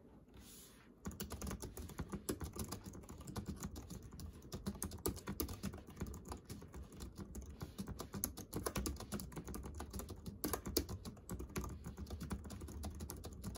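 Typing on a wireless keyboard with round typewriter-style keycaps: a quick, irregular run of clicking keystrokes that starts about a second in.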